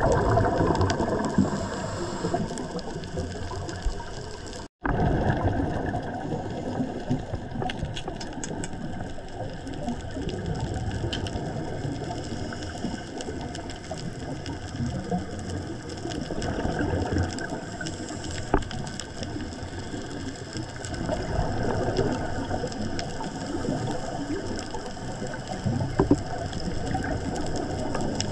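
Underwater sound of a coral reef dive heard through a camera housing: a continuous crackle of fine clicks, with swells of low bubbling rumble from a scuba diver's exhaust bubbles. The sound cuts out briefly about five seconds in.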